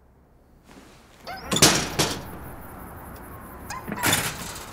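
A door clattering and banging twice, about two seconds apart, each time with a short squeak at the start, over a steady outdoor hiss.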